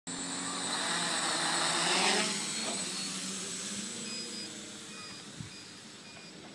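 Quadcopter's electric motors and propellers whirring through lift-off. The sound swells for about two seconds, then fades steadily as the drone climbs away.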